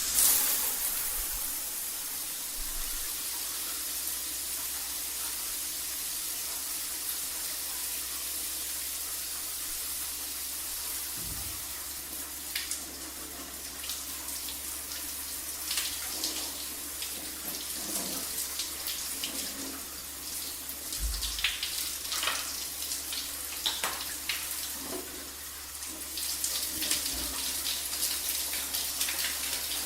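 Shower running: a steady spray of water hissing down, with uneven splashes and spatters breaking through from about twelve seconds in.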